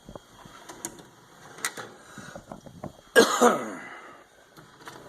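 Tool box drawers and the tools in them being handled: light clicks and rattles, then about three seconds in a louder sliding rumble that falls in pitch, like a ball-bearing drawer running shut.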